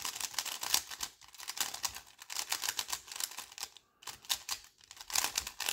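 A Rubik's cube's plastic layers being turned rapidly, a dense run of quick clicks and clacks with a short pause about four seconds in. The turning works freshly added lubricant through the cube.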